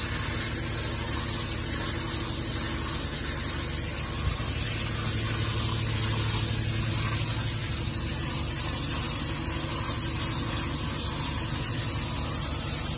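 Water spraying from a hand-held bath sprayer onto a soapy dog's coat in a grooming tub, over a steady low motor hum that grows a little stronger about five seconds in. One short knock about four seconds in.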